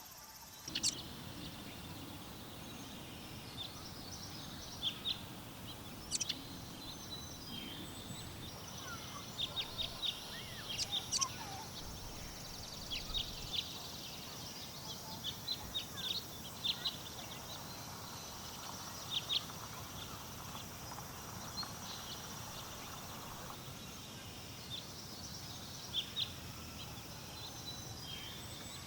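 Small songbirds chirping in a forest, short sharp calls coming again and again in scattered bursts over a steady low background rush.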